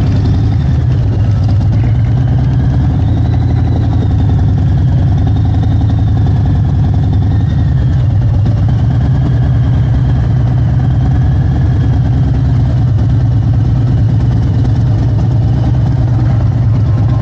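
Motorcycle engine running steadily at low speed, a loud, even, low exhaust note with a fast firing pulse.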